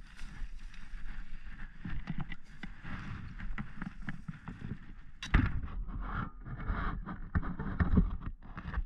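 Rustling, scraping and knocking from a body-worn camera as the wearer moves on a bank of dry grass, with low rumble on the microphone; a louder knock about five seconds in.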